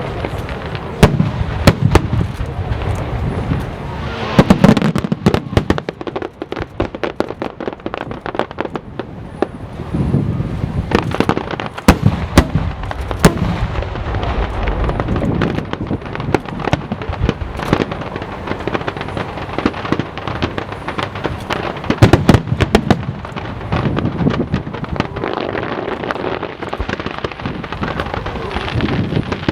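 Aerial fireworks display going off continuously: many sharp shell bursts and crackles, with heavier booming volleys at intervals.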